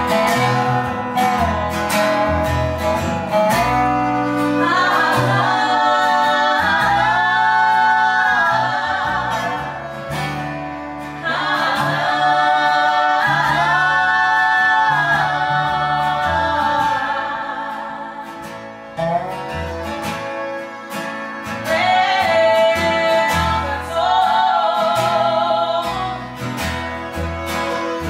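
Acoustic string band playing live: strummed acoustic guitar, upright bass and bowed fiddle, with a woman's voice singing in three phrases.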